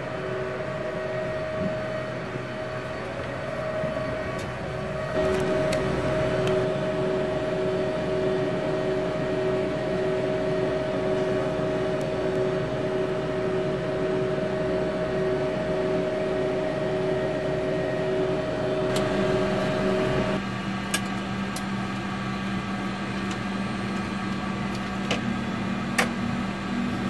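Lockheed L-188 Electra's Allison 501 turboprops running, heard from inside the aircraft as a steady drone with two held whining tones. About 20 seconds in the tones give way to a lower hum, and near the end a few sharp clicks come as switches on the cockpit overhead panel are worked.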